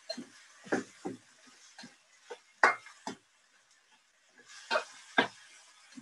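Metal spatula knocking and scraping against a wok as napa cabbage is stirred and turned: about a dozen irregular clacks, the loudest about two and a half and five seconds in.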